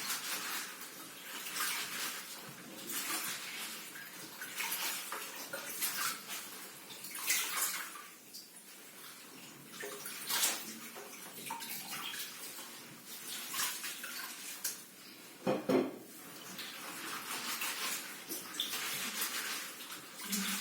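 Vegetables being washed by hand in water, with irregular splashing and sloshing and a single knock about fifteen seconds in.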